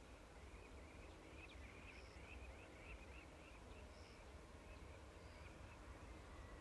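Near silence: faint birds chirping, a quick run of chirps about a second and a half in, over a low steady rumble.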